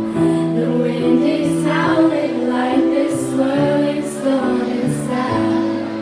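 Live music over a PA system: a singer's voice over a backing track of long held chords, with a few short hissing cymbal-like hits.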